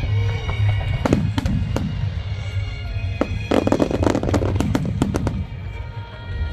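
Fireworks display: several single aerial shell bangs, then a rapid run of bangs with crackling from about three and a half seconds in, over music playing throughout.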